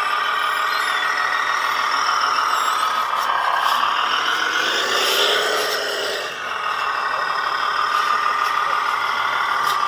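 8x8 scale RC trial truck driving over rocks and dirt: a steady high whine that rises and then falls in pitch about halfway through, as the truck works over an obstacle.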